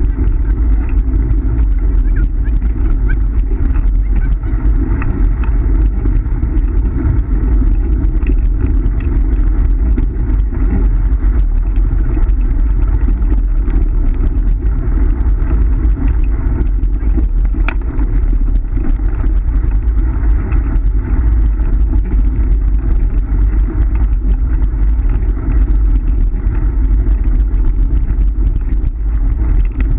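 Steady wind buffeting on the microphone with the low, even noise of a dog scooter's wheels rolling over a gravel road.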